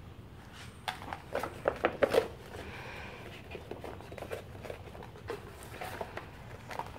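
Large glossy paper poster rustling and crackling as hands turn it over and smooth it flat, with a burst of sharp crinkles between about one and two seconds in, then lighter, scattered rustles.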